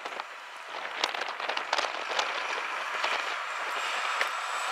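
Volvo FH semi-truck with a curtainside trailer approaching: road and tyre noise that grows louder, with scattered clicks and rattles.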